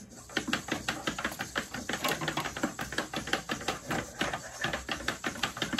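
XGO robot dog's servo-driven legs stepping on a wooden desk as it turns in place: a rapid, steady patter of small clicks and taps, several a second.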